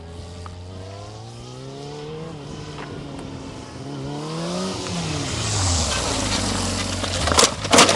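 Sport motorcycle engine revving, its pitch climbing, dropping and climbing again, then falling away. A rising hiss follows, and near the end come a few sharp loud crashes as the bike goes down.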